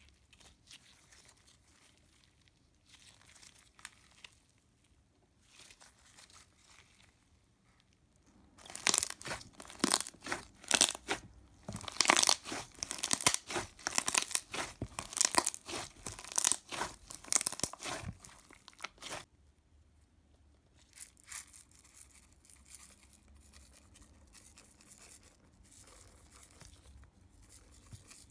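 A big batch of thick slime being squished and stretched by hand, making dense crackling and popping clicks. Faint crackles at first; the clicking turns loud about eight seconds in for some ten seconds, then dies back to scattered faint clicks.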